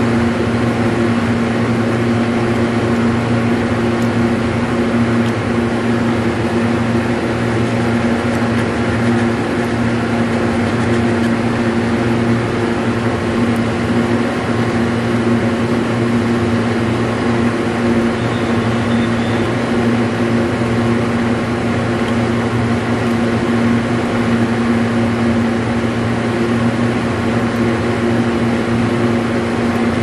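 Steady mechanical hum over an even rushing noise, with no change in pitch or level.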